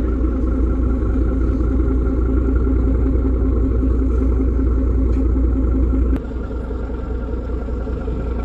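River car ferry's engine running steadily, a low pulsing drone. About six seconds in the level drops suddenly to a slightly quieter drone, with a sharp click at the change.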